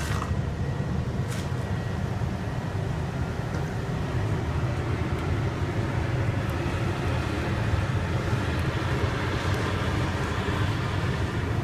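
Steady low hum and rush of a running corn-burning furnace, its fans going without let-up, with a few faint ticks.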